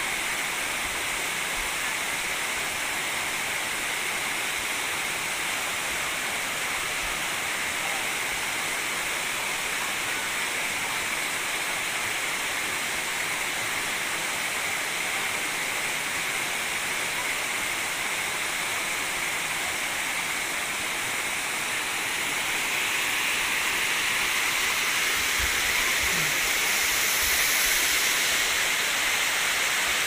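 Dzhur-Dzhur waterfall: a steady rush of falling water, growing a little louder in the last several seconds.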